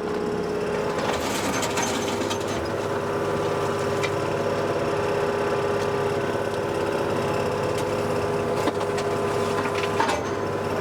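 Wacker Neuson excavator's engine running steadily under hydraulic load, with clatter and scraping from the bucket a second or two in and again near the end as it digs and loads material into a dumper.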